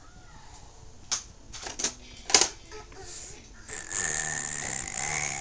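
A few light knocks and a sharp clack about two seconds in, then a baby's rough, raspy growl-squeal for about a second and a half near the end.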